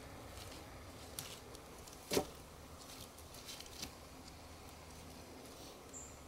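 Wooden poles knocking together as they are laid and shifted on a log shelter frame: one loud knock about two seconds in, with a few lighter wooden clicks around it.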